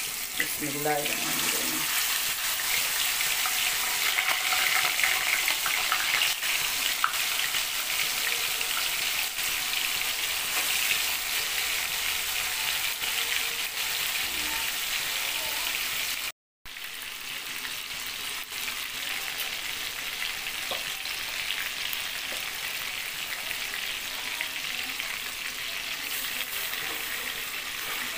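Marinated mutton chops frying in hot oil in a kadhai, a steady sizzling hiss as pieces go in one after another and are stirred near the end. The sound cuts out for a moment a little past the middle.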